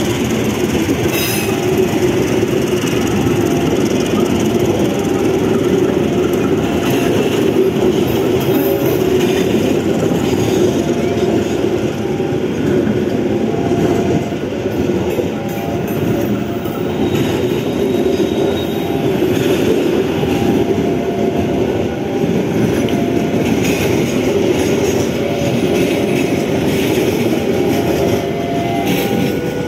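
Passenger coaches of a train rolling past close by: a steady rumble of steel wheels on the rails, with short faint squeals from the wheels now and then.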